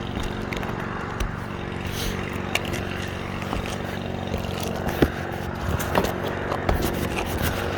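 Scraping and sharp clicks of an asphalt roof shingle being pried up to test whether it has sealed down, with the strongest clicks about five and six seconds in. A steady engine drone runs underneath.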